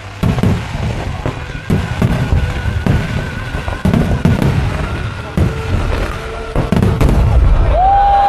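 Aerial fireworks shells bursting over and over, deep booms with crackling between them. Near the end a long whistling tone rises in and holds.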